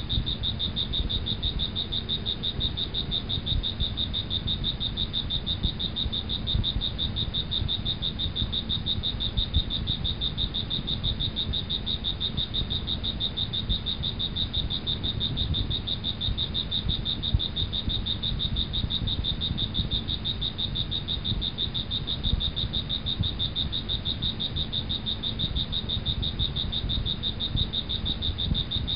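Night chorus of crickets and frogs: a steady high trill pulsing fast, over a low rumble.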